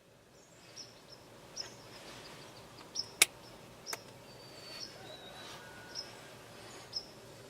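Quiet outdoor ambience with short, high bird chirps about once a second, and a sharp click about three seconds in.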